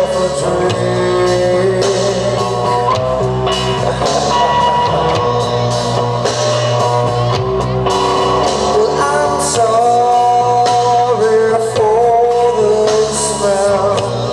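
Live rock band playing: electric guitars and drums, with a singer's voice over them.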